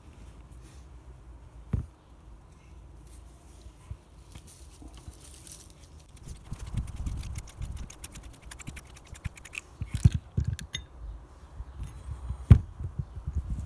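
Rusty hand-drill parts handled by hand: the chuck is turned off its rusty threaded spindle with a run of small gritty clicks and scrapes, and metal parts knock a few times, the sharpest knock near the end.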